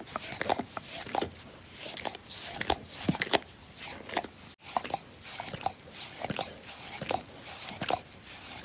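A dog licking: irregular short wet smacks and laps, about two to three a second, cutting out for an instant about halfway through.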